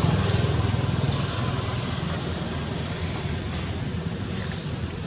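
Outdoor background noise: a low rumble that fades over the first couple of seconds and then holds steady, with short high chirps about once a second.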